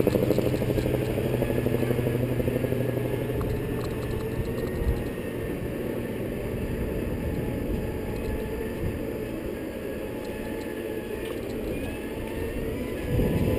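Wind buffeting the microphone of a camera riding on a moving Segway, with a faint steady whine from the Segway's drive. The wind noise grows louder again near the end.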